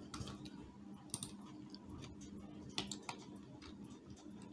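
Faint, scattered clicks of a computer keyboard, a few at a time, over a faint steady low hum.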